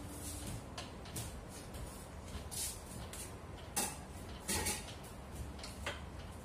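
Scattered small clicks and pops over a low steady hum, with the two loudest about four seconds in and half a second apart.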